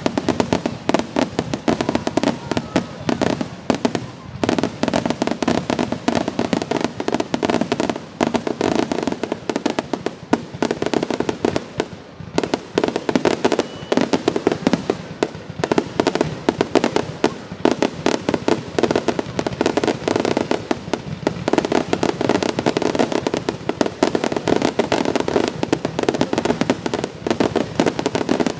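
Fireworks grand finale: a dense, continuous barrage of bangs and crackles, many bursts a second, with a few brief lulls.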